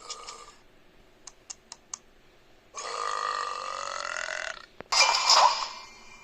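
Four quick clicks, then a long, steady burp of about two seconds, followed by a louder, rougher burp of about a second.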